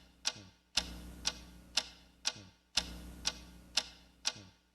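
Steady clock-like ticking, about two sharp ticks a second, over a faint low hum that cuts in and out.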